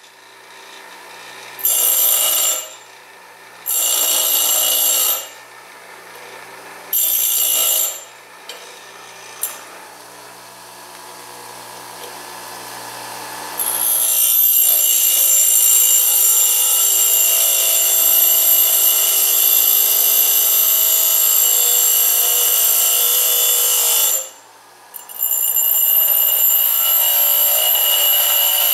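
DeWalt bench grinder running, its abrasive wheel grinding teeth into the end of a 2-inch metal pipe nipple with a high, ringing grinding noise. It starts with several short grinding passes, the motor humming faintly between them, then becomes a long continuous grind broken by one brief pause late on.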